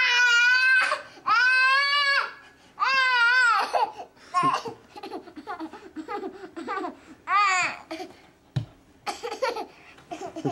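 A toddler crying in three long, high wails, then softer broken whimpers and fussing, with one more short wail about seven seconds in.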